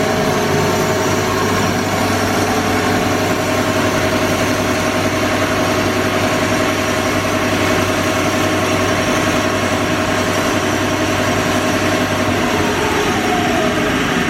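Amada HA-250W horizontal band saw running with its blade turning, a steady machine hum and whine. Near the end one tone drops in pitch.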